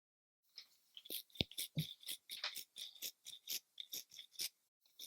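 Mouth-made sound effects: a quick run of short, crisp hissing clicks, about five a second, with a brief break near the end.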